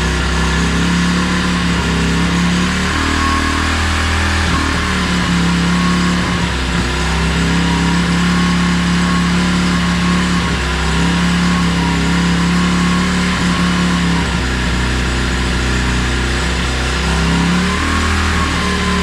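2016 Tao Tao 110cc pit bike engine, a small air-cooled four-stroke single, running steadily just after its top-end rebuild (new piston rings and head gasket). It is warming up so the new rings can seat. Its speed wavers slightly every few seconds.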